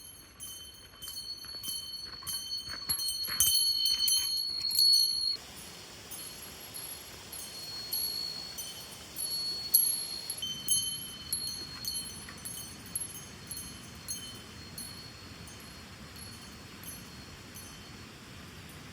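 High chime tones struck over and over, thick for the first five seconds, then thinning out and fading, over a faint steady hiss.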